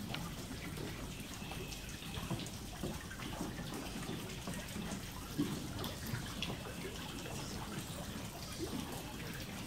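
Water trickling steadily from a garden pool.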